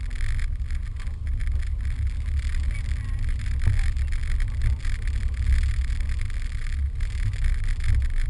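Steady low rumble of a car driving slowly over packed snow while towing a sled on a rope, picked up by a camera mounted on the car.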